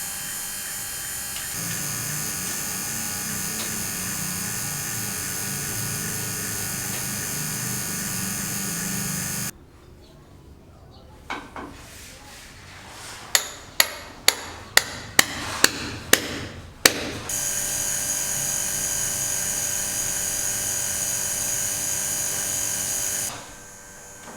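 A steady electric buzz with many overtones that cuts off suddenly after about nine seconds. About nine sharp knocks follow over several seconds, then the buzz starts again for about six seconds and stops abruptly.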